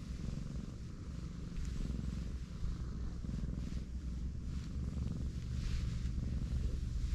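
A cat purring steadily, a low continuous rumble, while her belly is being stroked.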